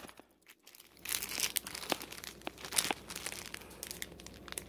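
Clear plastic bag around a packaged flag crinkling and rustling as it is handled, in irregular small crackles that start about a second in after a moment of near silence.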